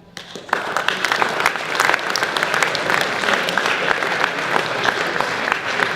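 An audience of students applauding, breaking out just after the start and keeping up steadily.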